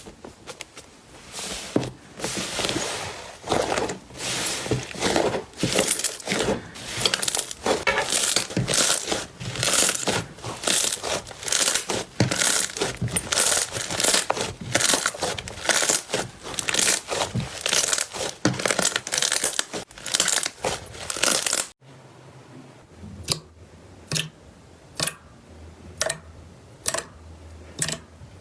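Slime being pressed and squeezed by hand, with dense crackling and popping. After a sudden cut about two-thirds of the way through, there are sparser sharp clicks, roughly one a second.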